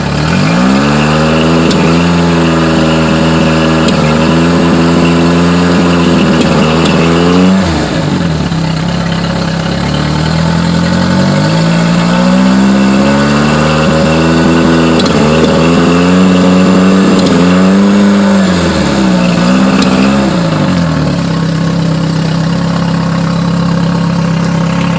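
Yamaha four-stroke engine idling, then revved up and held twice, the second time with the revs wavering before it drops back to idle. The engine has a misfire that the owner puts down to the carburetors.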